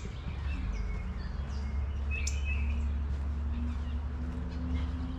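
Wild birds chirping in short calls over a steady low engine drone from a distant motor, its hum rising slightly in pitch over the few seconds.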